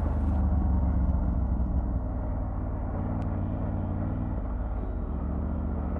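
Triumph Tiger 900 Rally's three-cylinder engine running steadily at low revs, the note easing slightly about two seconds in.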